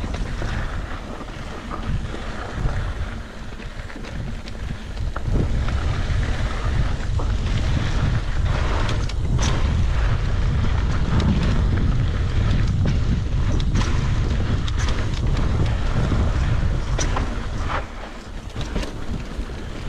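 Wind buffeting the microphone during a mountain bike ride, with the bike clattering and knocking irregularly over rough trail.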